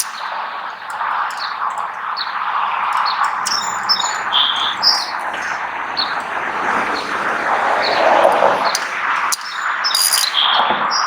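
Small birds chirping in short, repeated high calls over a steady rushing background noise.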